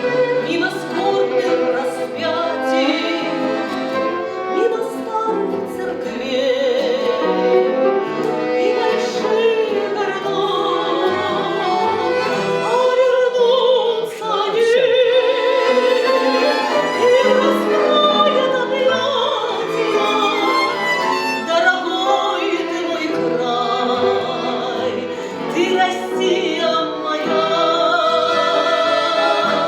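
A Russian romance being performed: a melody with vibrato, violin to the fore, over a string accompaniment.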